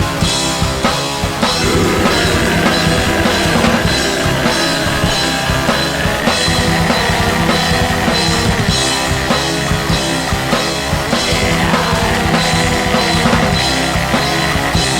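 Symphonic black metal music: fast, steady drumming under distorted guitars, with a sustained high synth or orchestral line that shifts pitch twice.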